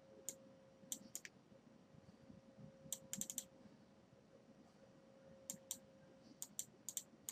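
Faint, scattered clicks of computer keys, single taps and short clusters of three or four, with long pauses between, over a faint steady hum.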